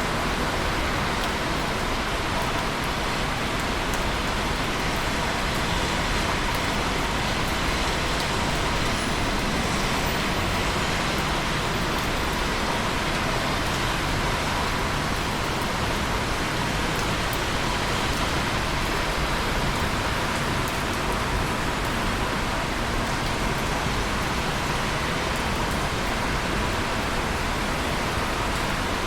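Busy traffic on rain-wet roads heard from a tower-block rooftop high above: a steady hiss of tyres on wet tarmac blended with rain. Scattered faint drips land on concrete.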